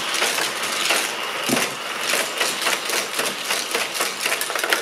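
Hot Wheels Criss Cross Crash track set running, very noisy: its battery-powered boosters whir steadily as spinning rubber rollers fling die-cast toy cars around the plastic loops. A dense, fast rattle of cars clattering on the track runs through it.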